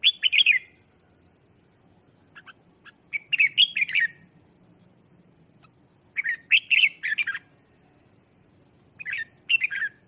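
Red-whiskered bulbul singing: four short, loud warbling phrases a few seconds apart, with a couple of faint single notes between the first two. It is a decoy bird's song, used to call in and provoke other bulbuls.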